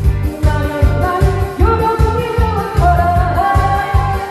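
Korean trot song: a woman singing over a steady thumping beat.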